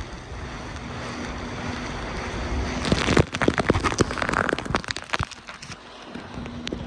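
Water rushing under a towed inner tube as it crosses a jet ski's wake, building up and then breaking into about two seconds of dense splashing and spray pelting close to the microphone. A faint steady hum from the jet ski's engine runs underneath.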